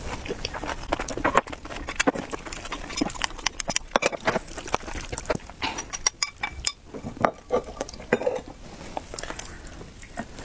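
Close-up eating sounds: chewing and mouth sounds, then wooden chopsticks scraping food off a ceramic plate into a ceramic bowl and clinking and tapping against it as the food is stirred with a wooden spoon.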